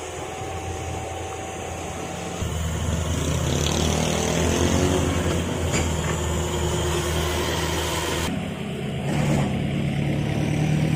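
Cat mini excavator's diesel engine running, louder from about two and a half seconds in as the machine works, with a wavering whine over it in the middle.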